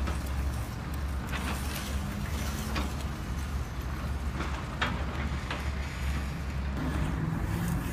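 Loose gravel and soil crunching and scraping as a Bruder CAT toy bulldozer's plastic blade is pushed through a pile, with a few short gritty scrapes over a steady low hum.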